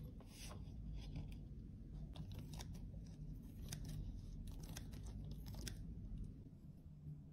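Plastic bag full of crushed pressed powder crinkling and crunching as gloved fingers press and handle it: irregular crackles and clicks that ease off about six seconds in.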